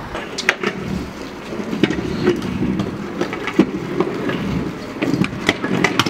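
Several stunt kick scooters rolling over asphalt and brick paving: a rough, steady wheel rumble broken by many sharp clicks and knocks from the decks and wheels.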